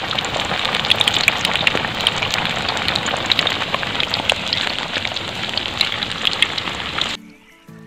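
A whole masala-coated fish deep-frying in hot oil in a wok, a dense, steady sizzle full of sharp crackles. The sizzle cuts off suddenly about seven seconds in.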